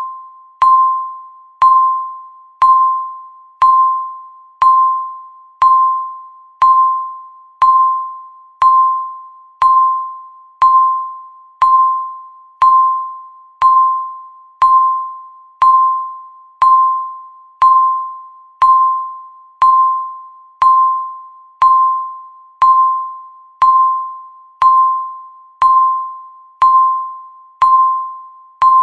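Countdown timer beeping once a second: a single mid-pitched electronic beep that starts sharply and fades away before the next, repeating steadily.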